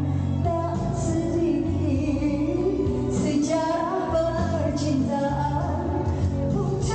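A woman singing live into a microphone over a recorded backing track, a slow pop melody with long held notes, played through the venue's speakers.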